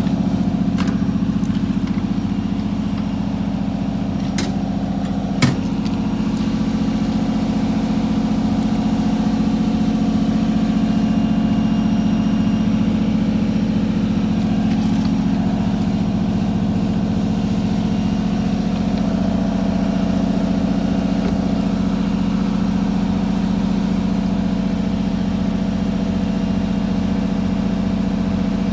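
An engine idling steadily, an even low hum that holds the same pitch throughout, with a sharp click about five seconds in.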